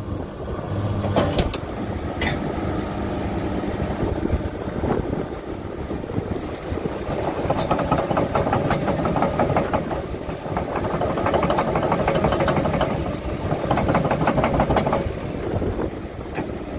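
Kobelco SK210LC hydraulic excavator travelling on steel tracks: the diesel engine runs while the track chains clank and rattle. From about seven seconds in this becomes a fast, dense clatter with short high squeaks.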